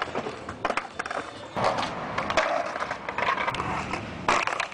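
Skateboard rolling over pavement: a rough wheel rumble broken by several sharp clacks and knocks of the board.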